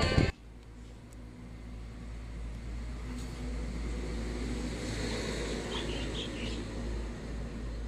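Background music cuts off right at the start, leaving outdoor ambience: a steady low rumble with a light hiss, and a few short high chirps about five and a half to six and a half seconds in.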